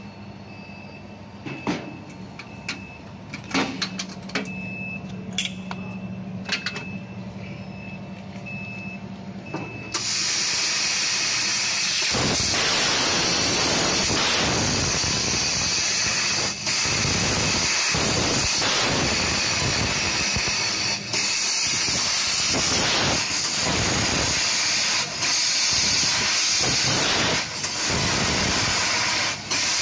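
Assist gas hissing loudly from the nozzle of a 1 kW fiber laser cutting head as it cuts 3 mm brass, broken by brief dips as the head moves between cuts. The hiss starts about a third of the way in. Before it there is a quieter machine hum with scattered clicks and short repeated beeps.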